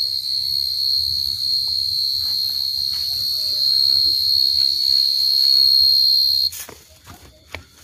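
Field cricket calling close by: a loud, continuous high-pitched trill that stops abruptly about six and a half seconds in, followed by a few faint clicks.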